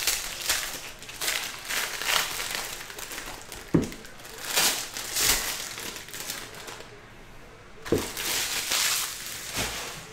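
Foil wrappers of trading-card packs crinkling in bursts as they are handled and opened, with two sharp knocks about four seconds apart.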